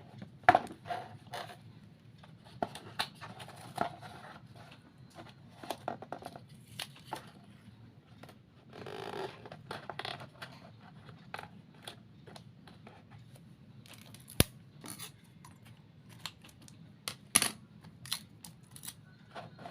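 Scissors snipping, with irregular short clicks and taps as craft material is cut and handled, and a longer scrape about nine seconds in.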